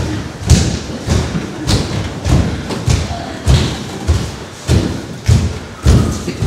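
Steady, evenly spaced heavy thumps, a little under two a second, keeping a beat for the dancers.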